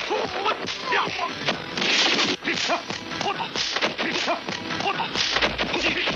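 Martial-arts film fight sound effects: a rapid run of punches, blocks and whooshing swings, several hits a second, over a film score.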